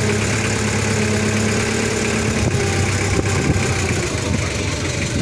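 Forklift engine running at idle, a steady hum. About halfway through, the even tone gives way to a rougher, less steady sound.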